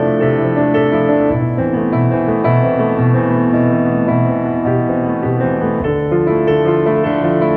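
Background music led by piano, slow and sustained, with the chords changing every second or so.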